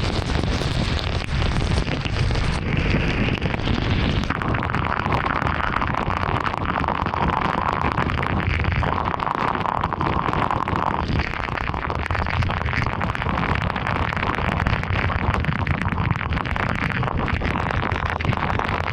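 Heavy rain drumming on a car: a dense, steady crackle of drops striking the roof and windshield.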